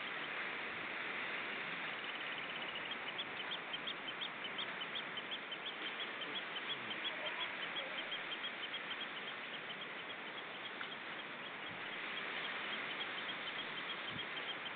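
Waves breaking and washing over a rocky shingle shore as a steady hiss, with a bird giving a rapid run of short high pips, several a second, starting about two seconds in.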